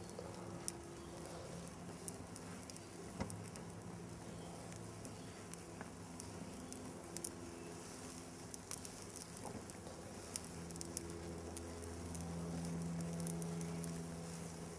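A grinder burning in a fire, crackling with scattered sharp pops, over a low steady hum that swells a little near the end.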